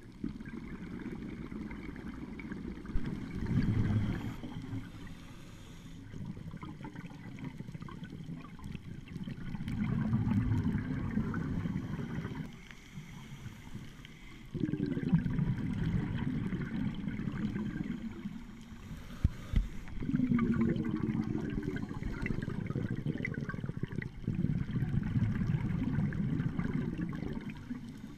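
Scuba exhalation bubbles gurgling out of a regulator, heard underwater: about five bursts of bubbling a few seconds apart, with quieter gaps between breaths.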